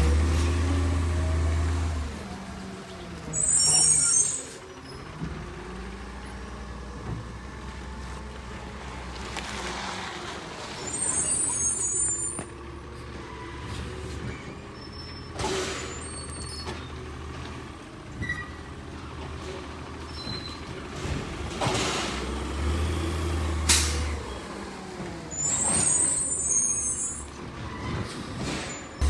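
Labrie Automizer garbage truck with a natural-gas engine idling and revving up briefly twice, once at the start and again about 22 seconds in. Its air brakes let out three short hisses, about 3, 11 and 26 seconds in, with a few sharp clicks and clanks between them.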